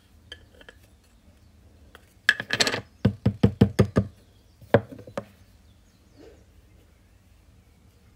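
Powder compact and puff being handled: a short rattle, then a quick run of about seven knocks within a second, and two more single knocks shortly after.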